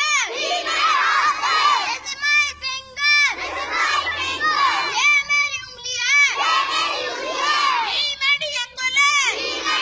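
Schoolboys chanting, shouting words loudly in short phrases of about a second each, with brief pauses between.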